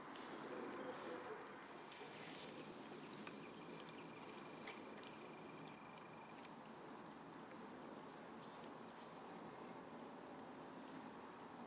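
Short, high bird calls, each a quick falling note: one about a second in, a pair around the middle and three in quick succession near the end, over a faint, steady woodland background.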